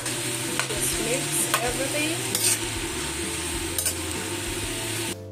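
Metal spatula stirring and scraping stir-fried vegetables and scrambled egg around a sizzling stainless steel pan, with scattered clinks of the spatula against the pan. The sound cuts off suddenly near the end.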